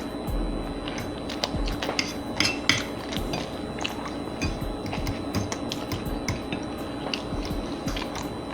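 People eating spaghetti and garlic bread: chewing and mouth clicks, with forks clicking against plates, over faint background music.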